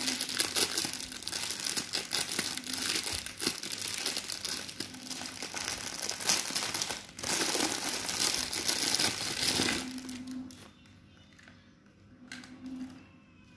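Clear plastic wrapping crinkling and rustling as a coiled LED string light is pulled out of it by hand. The crinkling dies down about ten seconds in, leaving only faint handling sounds.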